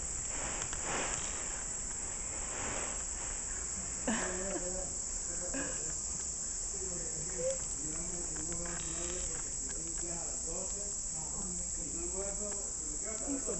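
Steady, high-pitched chorus of insects, with faint voices murmuring underneath and a light tap about four seconds in.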